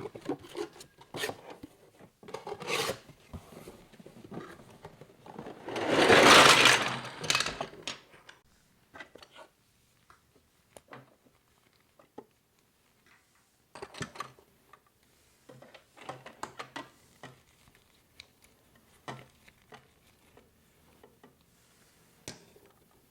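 Handling of a LEGO Duplo box and its plastic pieces: scattered clicks and light knocks, with one loud rustle lasting about two seconds about six seconds in, then sparser clicks of plastic parts.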